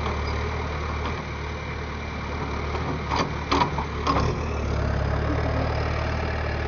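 John Deere 410J backhoe loader's diesel engine running steadily at a low, even hum, with a few sharp knocks about three to four seconds in.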